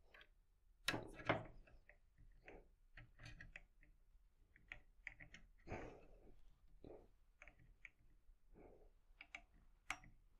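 Faint, irregular clicks and light taps of a racquet-stringing clamp and string being worked on a tennis racquet, with two louder clicks about a second in.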